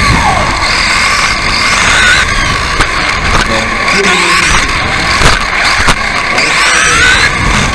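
On-board sound of a radio-controlled off-road racing buggy at speed: its motor whine rises and falls with throttle, over rough rumbling from the tyres and chassis on the dirt track. Two sharp knocks a little after five and six seconds in.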